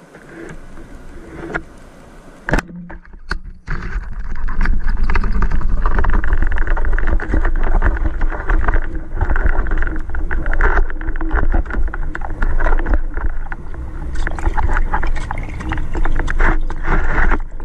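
A sharp click about two and a half seconds in, then from about four seconds on a loud, steady underwater rushing with a deep rumble: water streaming over the camera housing as the spearfisher kicks up toward the surface with a speared fish on the line.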